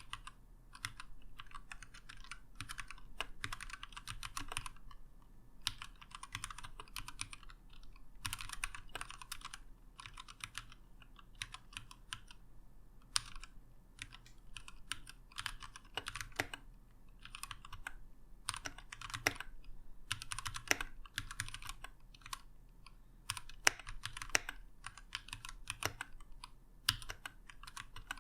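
Typing on a Keychron K6 mechanical keyboard with Gateron Red linear switches, heard as fast runs of key clicks in bursts with short pauses.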